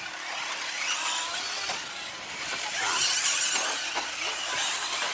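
Electric brushless-motor RC short course trucks racing, with high whines from the motors and drivetrains rising and falling in pitch and gravelly tyre noise. The loudest moment comes about three seconds in, as a truck passes close.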